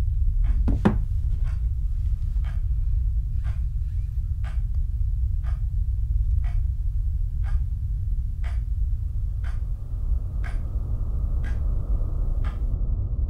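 A clock ticking steadily, about one tick a second, over a loud low drone. A short whoosh sounds about a second in, and a soft hiss joins the drone from about ten seconds.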